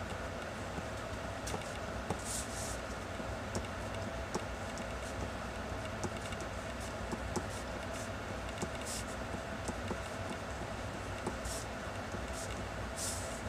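Pencil graphite scratching on paper: short hatching strokes from a 0.5 mm mechanical pencil, with a few louder scratches about two seconds in, around nine seconds and near the end, over a steady low room hum.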